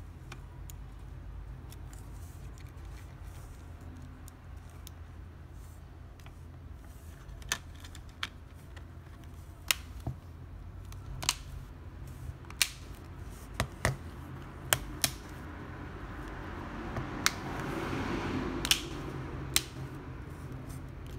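Plastic back cover of a Samsung Galaxy A12 being pressed onto the phone's frame, its clips snapping into place as a string of sharp clicks, about a dozen spread over the second half, with some rubbing of the cover under the fingers near the end.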